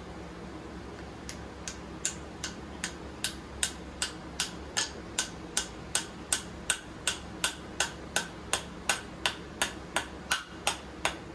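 A small hammer tapping a glued wooden wedge into the slit in the top of a new wooden claw-hammer handle, tightening the head on the handle. Steady, even taps about two and a half a second, soft at first and louder from about two seconds in.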